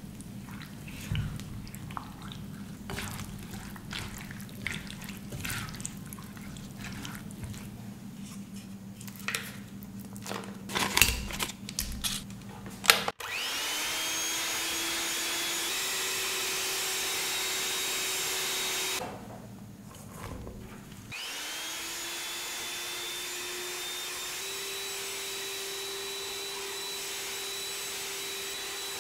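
A spatula stirs and scrapes soaked dried fruit in a glass bowl, with scattered knocks against the bowl. Then an electric hand mixer whirs up to speed beating butter and runs steadily for about six seconds, stops briefly, and starts up again, creaming the butter with powdered sugar.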